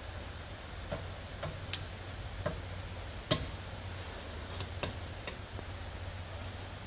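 Irregular light metallic clicks and ticks as the spring clip is pressed into place on a rear brake caliper, the sharpest about three seconds in, over a steady low hum.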